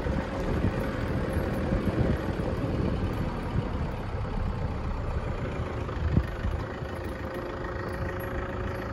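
Vehicle engine running at low speed on a dirt track, a steady low rumble with a faint constant hum. A single sharp knock about six seconds in.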